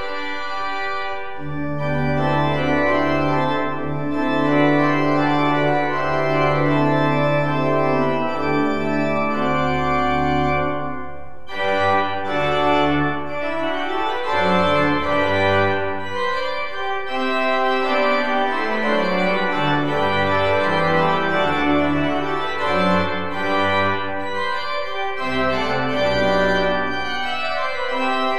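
Pipe organ playing sustained chords over deep pedal bass notes, with a short break in the sound about eleven seconds in before the playing continues with moving bass notes.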